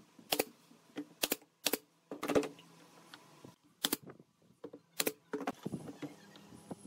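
Pneumatic brad nailer firing, about six sharp shots at irregular intervals, driving brads into pine slats.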